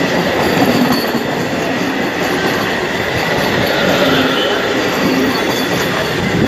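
A white passenger train running past close alongside on the adjacent track: a steady, loud rush of wheels on rail with a faint high squeal from the wheels.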